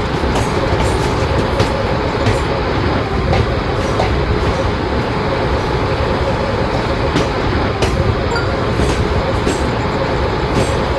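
Electric train running at speed: a loud, steady rumble of wheels on rail, with sharp clicks from the wheels at irregular intervals.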